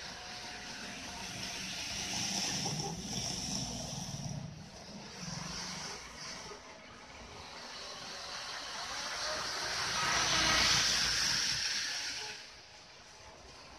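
Model trains running on the layout's track: a steady rolling rattle of wheels on rail with a motor whir. It swells twice as trains pass near, loudest about ten to twelve seconds in, then drops away.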